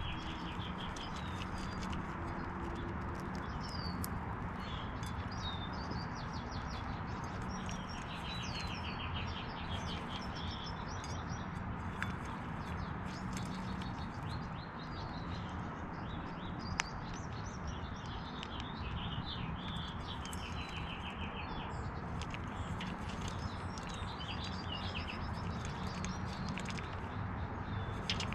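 Small songbirds chirping and trilling over and over, over a steady low background hum. A single sharp click about two-thirds of the way through.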